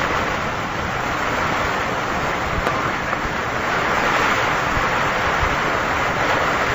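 Steady hiss of static on an open HF air-to-ground radio channel, with no voice on the link.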